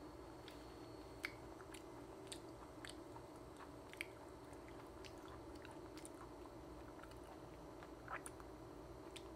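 Faint chewing of a raw coconut worm (palm weevil larva) dressed in fish sauce and chili, with scattered soft mouth clicks over a low steady room hum.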